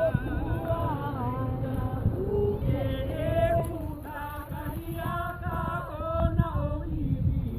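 A group of voices singing a chant together in held, wavering notes, over a steady low rumble.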